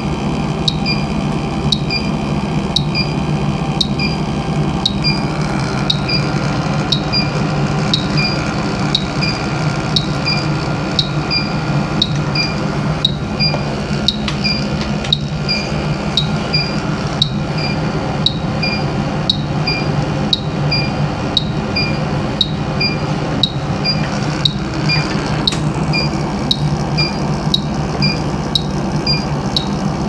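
Electronic refrigerant leak detector (Bacharach H-10 PRO) ticking with short high beeps at an even rate, about three every two seconds, over a steady low hum.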